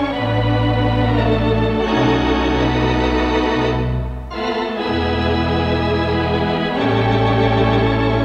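Wurlitzer theatre organ playing held chords over low bass notes that change every second or so, with a brief break about four seconds in. It is an old off-air radio recording made on a mono tape recorder, with the top end cut off.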